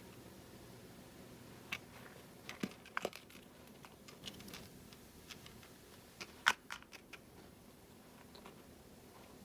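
Scattered light clicks and taps of a small plastic dental floss case as a Maine Coon kitten bats and grabs it on carpet, with soft scuffling between. The sharpest click comes about six and a half seconds in.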